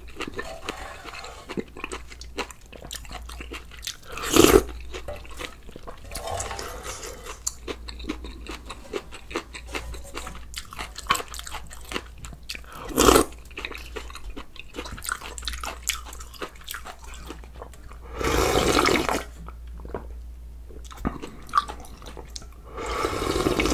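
Close-miked chewing and crunching of food, with many small clicks of the mouth. Four louder sounds stand out; the longest lasts about a second, a few seconds before the end.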